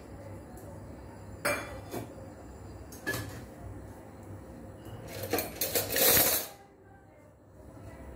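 Steel kitchen vessels and a metal spoon clinking and scraping as fried onions are spooned from a pan into a steel bowl: a few separate clinks, then a louder clatter about six seconds in.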